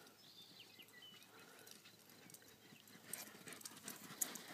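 Near quiet, with faint scuffing footfalls on sandy dirt in the last second and a half.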